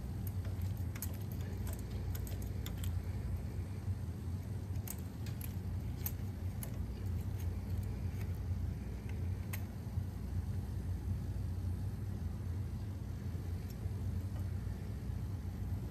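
Small metal clicks and clinks of a hex bit and a loose 3 mm hex bolt being turned out of a tractor's PTO solenoid valve by hand, mostly in the first ten seconds, over a steady low hum.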